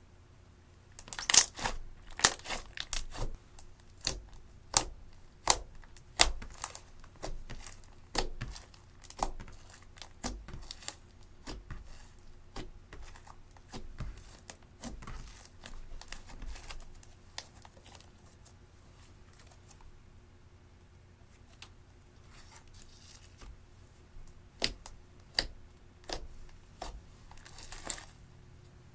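Slime being squeezed, stretched and folded by hand, giving a rapid run of sharp pops and crackles. The popping thins out about two-thirds of the way through and picks up again near the end.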